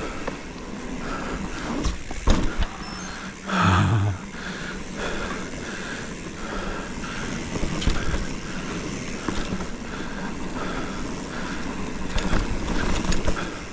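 Cro-Mag Rootdown hardtail mountain bike with plus tyres rolling along a dirt trail: steady tyre and wind noise with rattles and knocks over bumps. A brief, loud low pitched sound comes about three and a half seconds in, and more knocks near the end.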